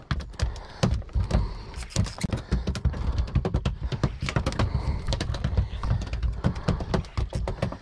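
Rapid, irregular clicks and knocks over a steady low rumble.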